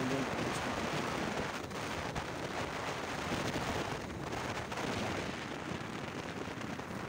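Steady rush of wind buffeting the microphone of a moving vehicle, with the vehicle's running noise underneath.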